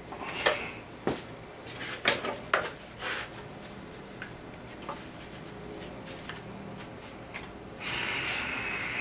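Handling knocks and clunks as the removed cylinder head of a Yamaha 25 hp two-stroke outboard is picked up and moved, several in the first three seconds. Near the end comes a steady hiss of about two seconds.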